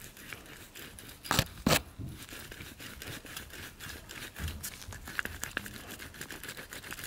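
Worn B58 electric water pump, just removed, turned by hand: a gritty rattling of many fine ticks from its failing shaft bearing, a sign of play in the shaft and bearing wear. Two sharp knocks come about a second and a half in.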